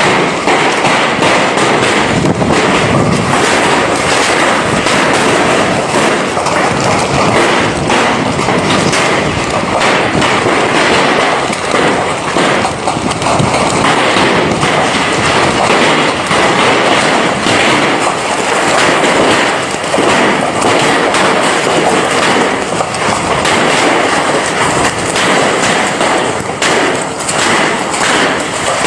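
Heavy hailstorm: a dense, loud, continuous clatter of hailstones striking hard surfaces.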